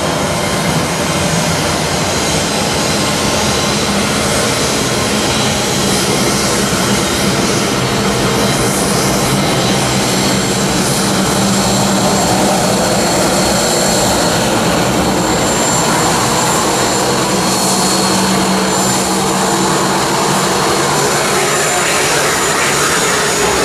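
Jet airliner engines running at close range: a loud, steady roar with a high, thin whine held over it throughout.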